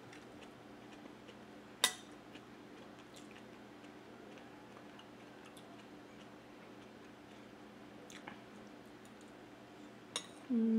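Metal spoon clinking once, sharply, against a glass bowl of soup about two seconds in, with faint scraping and chewing sounds over a steady low hum; a couple of softer clicks near the end.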